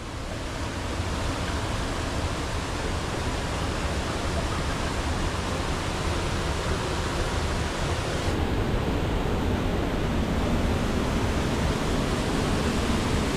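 Waterfall rushing: a steady, dense wash of falling water that fades in over the first second and then holds.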